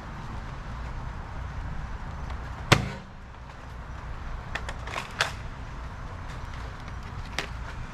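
A Nerf blaster's sharp plastic clicks and snaps, about five in all, the loudest about three seconds in and a cluster around the middle, over a low steady rumble.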